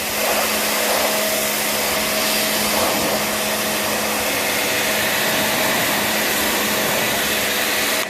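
Pressure washer running steadily, its jet blasting soot off the side panels of an old backyard incinerator. It stops suddenly at the end.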